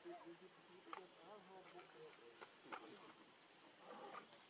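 Steady high-pitched insect chorus, faint, with soft short calls or distant voices murmuring underneath.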